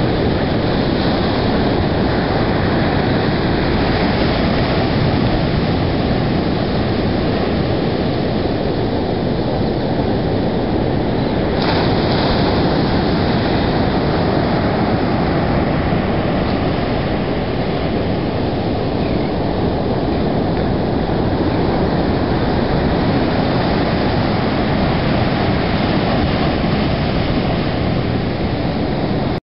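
Atlantic surf breaking and washing up a sandy beach: a loud, steady wash of noise, heavy at the low end, with one brief click near the middle.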